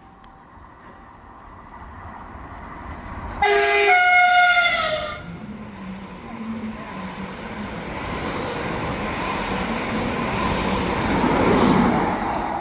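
Electric multiple unit sounding its two-tone horn once, a short lower note stepping up to a longer higher one, then the rising rumble and rush of the train running in and past, loudest near the end.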